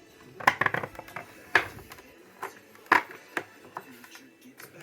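A series of sharp clicks and knocks: a quick cluster about half a second in, then single knocks spaced through the rest.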